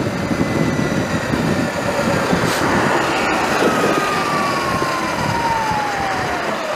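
Sur Ron electric dirt bike's motor whining as the bike rides on, its pitch falling steadily as it slows, under a steady rush of wind and road noise.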